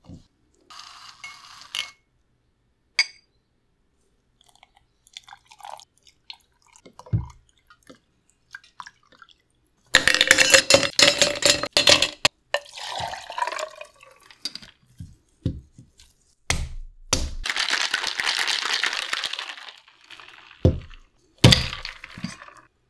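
Cocktail-making sounds: scattered small taps and clinks, then about two seconds of ice cubes clattering loudly into a stainless-steel cocktail shaker. Later comes a steady rush lasting a few seconds, and near the end a few knocks of glass on a plate as the glass rim is dipped.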